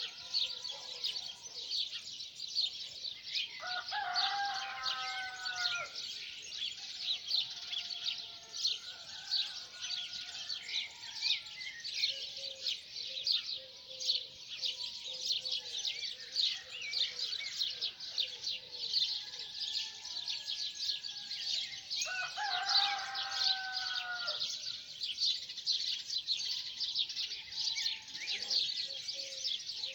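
Dense chorus of small songbirds chirping continuously, with a rooster crowing twice: once a few seconds in and again about two-thirds of the way through.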